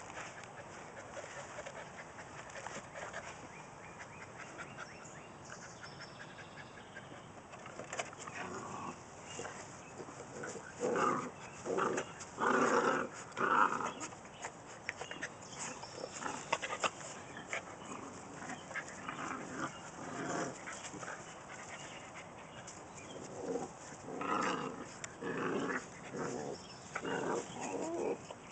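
Two puppies play-wrestling, with short bursts of puppy growling in two spells, one about a third of the way in and another near the end.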